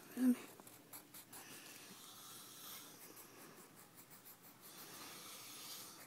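Coloured pencil scratching softly on paper as a drawing is coloured in. A brief murmured voice comes right at the start.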